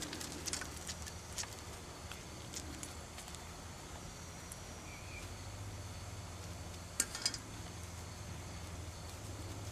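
Basset hound carrying a stainless steel food bowl of kibble in its mouth: light clicks in the first second and a half, then two sharp metal clinks about seven seconds in as the bowl is handled and set down on the grass.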